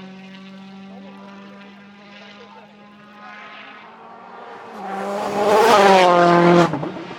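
Rally car engine at high revs, steady at first, then growing much louder as the car comes close by about five to six seconds in. Its pitch falls as it passes, then the sound cuts off suddenly.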